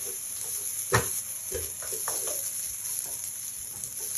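Egg fried rice sizzling in a nonstick wok while a metal slotted spatula stirs it, scraping and knocking against the pan every half second or so, with one sharper knock about a second in.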